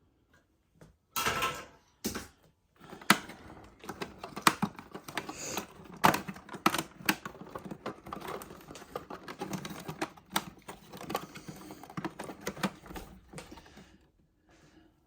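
Plastic parts of a refrigerator's ice and water dispenser being pried apart and handled. A short burst of noise comes about a second in, then irregular clicks, snaps and rattles for about ten seconds.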